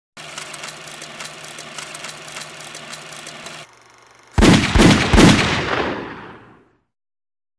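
Intro sound effects: a steady crackling static full of small clicks over a low hum for about three and a half seconds, then, after a short drop, three heavy booms in quick succession that die away over about two seconds, a logo-reveal sting.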